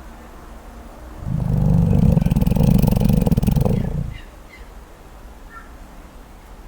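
Koala giving one long, deep, rasping snore, starting about a second in and lasting about three seconds.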